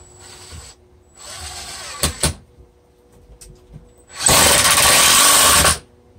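Cordless drill-driver driving construction screws into old, dry wood framing: two short, quieter runs in the first two seconds and a couple of clicks, then a louder run of about a second and a half near the end.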